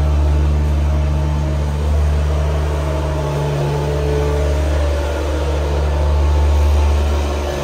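Engine of a small farm machine running steadily at a constant speed, a low drone that swells slightly a couple of times.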